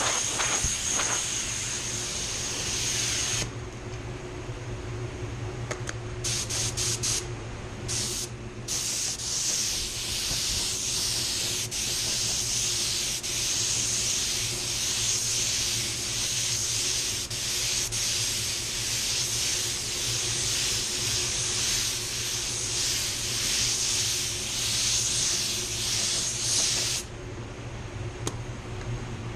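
A small mini jet paint spray gun hissing as it sprays silver basecoat. Spraying stops after about three and a half seconds, then comes a few short trigger pulls, then one long continuous pass that cuts off suddenly shortly before the end. A steady low hum runs underneath.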